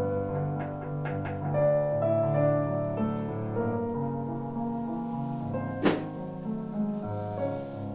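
Solo piano music: slow, sustained melodic notes over low bass notes. A single sharp click cuts through it about six seconds in.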